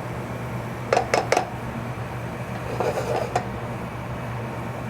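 A stirring utensil clinking against a sauce pot of diced onions sweating in butter, three quick knocks about a second in and a few more around three seconds, over a soft sizzle and a steady low hum.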